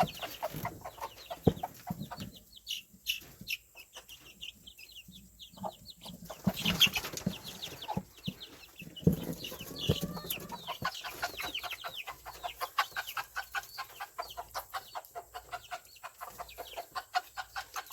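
Baby chicks peeping with a mother hen clucking; the chicks' short high peeps come fast and steady through the second half.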